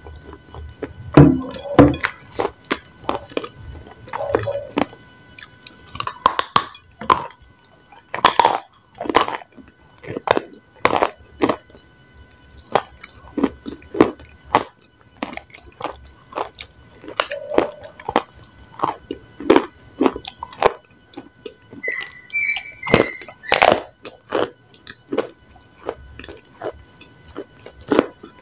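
Close-miked crunching and chewing of a dry, chalky grey block: many sharp, irregular crunches and crumbling snaps, with pieces broken off by hand over a plate. A few short, high squeaks come a little past two-thirds through.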